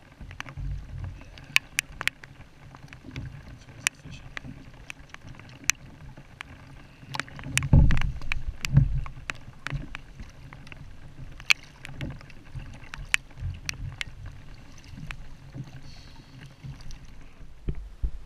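Choppy water slapping and sloshing against a plastic sit-on-top kayak (Ocean Kayak Trident 13), with many sharp clicks and knocks on the hull and a couple of heavier thumps about eight and nine seconds in.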